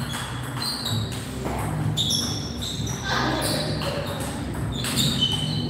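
Table tennis rally: the celluloid ball clicking sharply off bats and table in a quick, uneven series of hits, ringing slightly in a large hall.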